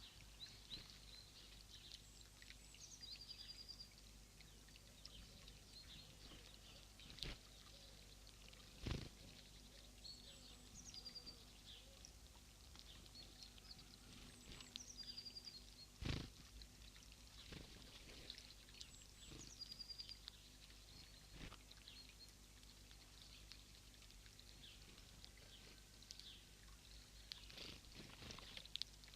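Faint calls of small birds: short groups of high notes that come back every few seconds. Several sharp knocks sound in between, the loudest about nine and sixteen seconds in.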